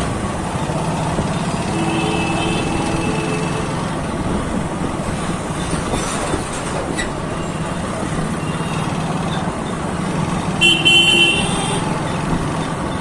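Motorcycle engine running steadily while riding through traffic, with a vehicle horn sounding twice: a fainter toot about two seconds in and a louder, longer one near the end.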